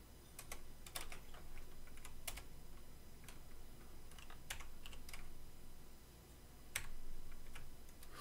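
Typing on a computer keyboard: irregular single keystrokes and short runs of keys, with a brief pause near the end.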